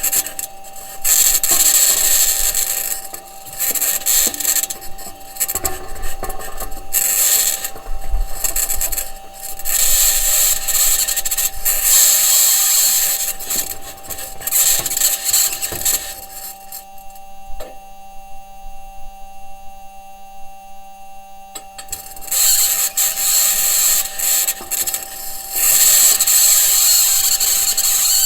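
Perseverance Mars rover driving, heard through its entry, descent and landing microphone: its wheels and suspension grind and scrape over rock in repeated surges, under a steady high-pitched tone. The high-pitched scratching may be electromagnetic interference from one of the rover's electronics boxes, or its mobility system working against the surface. For several seconds past the middle the grinding stops, leaving only a steady hum and a single click.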